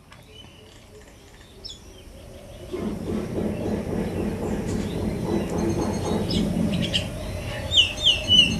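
A steady low rumbling noise comes in about three seconds in and holds, with a few birds chirping over it near the end.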